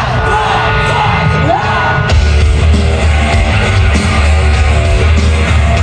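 Loud background music with singing; a heavy bass comes in about two seconds in.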